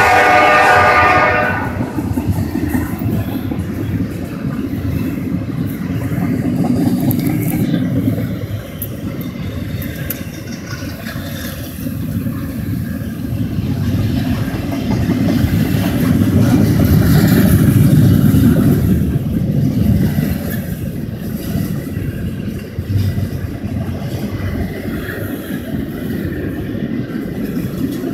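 A CSX double-stack intermodal freight train passing: a locomotive's multi-note horn cuts off about a second and a half in, leaving the steady rumble and rolling of the loaded container cars on the rails, which swells for a few seconds past the middle.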